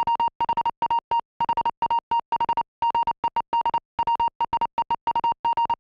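Morse code played as a high-pitched electronic beep, keyed in short and long tones grouped into letters, spelling out 'What hath God wrought', the first long-distance telegraph message.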